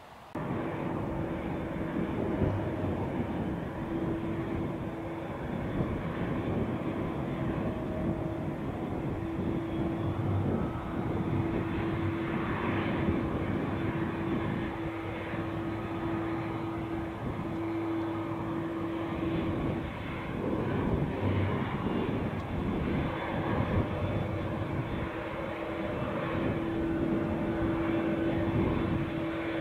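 Twin-engine jet airliner taxiing slowly, its turbofan engines running with a steady rushing hum and a held low whine. The sound starts abruptly.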